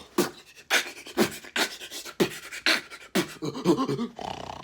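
A man beatboxing as a mock snore: a rhythm of sharp mouth-made kick and snare hits, about two a second, giving way to a wobbling hum near the end.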